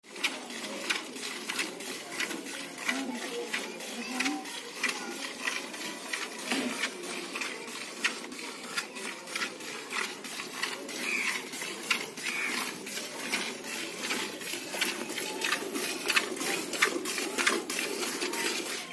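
A Murrah buffalo being milked by hand: short streams of milk squirting into a plastic bucket in a steady rhythm, one pull after another.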